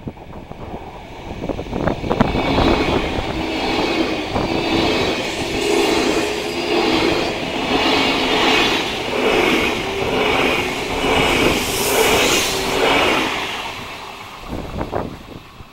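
Two coupled Renfe class 449 electric multiple units passing close at speed: a rush of wheels on rail that builds over about two seconds, stays loud with a pulsing beat and a steady hum under it, then fades away near the end.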